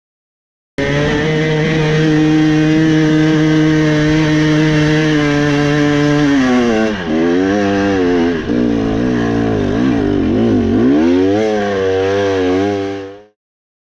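Two-stroke dirt bike engine starting suddenly about a second in and holding steady revs, then revving up and down repeatedly, before fading out near the end.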